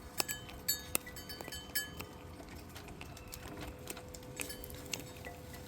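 A quick run of sharp metallic clinks with a brief ring in the first two seconds, then fainter scattered clicks, over a faint steady hum.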